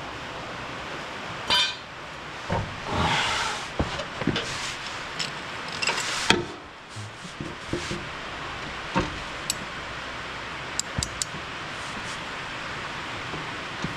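Irregular metallic clinks, knocks and short scrapes of hand tools and parts being handled while working on a riding mower's deck, over a steady background hiss.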